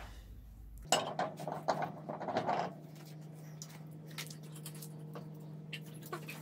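Quick metallic clinks and clatter of lug nuts and hand tools being handled during a car wheel change, thickest from about a second in to nearly three seconds, then a few single clicks. A steady low hum runs underneath from about a second in.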